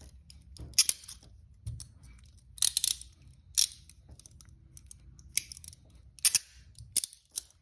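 Steel handcuffs being handled and worked: a series of sharp metallic clicks and rattles, spaced irregularly, with a quick cluster of clicks about three seconds in.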